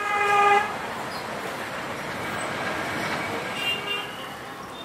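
A vehicle horn sounds once, loud and short, at the very start, followed by steady traffic noise with a fainter pitched tone about three and a half seconds in.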